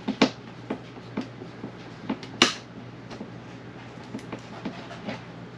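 Hand screwdriver turning screws out of a ceiling cover plate: scattered small clicks and scrapes, with two sharper clicks, one just after the start and one about two and a half seconds in.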